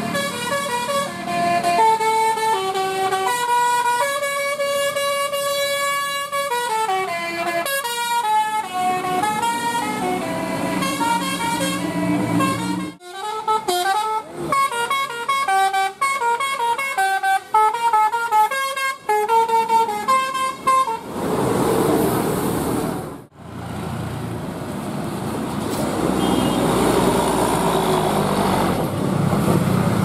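A tour bus's 'telolet' multi-tone air horn playing a melody of quick stepping notes for about twenty seconds. It then gives way to steady engine and road noise from passing traffic.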